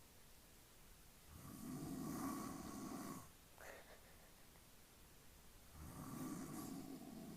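A man snoring: two long snores, each about two seconds, the first a little over a second in and the second near the end, with a brief faint rising squeak just after the first.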